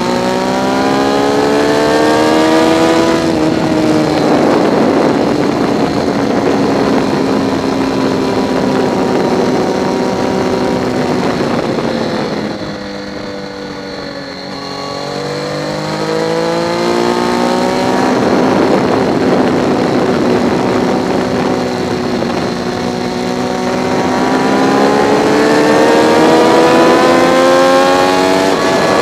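Triumph Daytona 675's three-cylinder engine under hard acceleration on track, revs climbing and dropping at each upshift. About halfway through the throttle closes and the note falls and quietens, then it pulls again with the revs climbing for several seconds before another shift near the end. Wind rush runs underneath.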